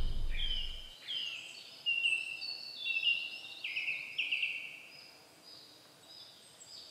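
Several songbirds singing in woodland: short, overlapping high phrases and trills, busiest in the first half and thinning toward the end. A low rumble dies away within the first second.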